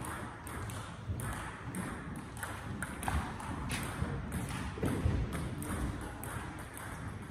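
Table tennis ball being struck by bats and bouncing on the table in a rally: a steady run of short sharp clicks, about two or three a second.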